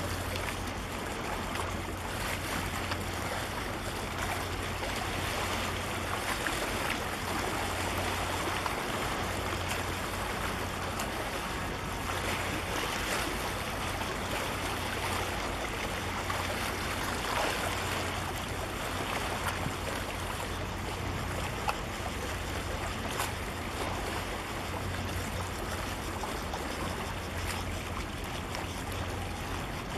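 Steady rushing noise of wind and water with a low, steady hum underneath.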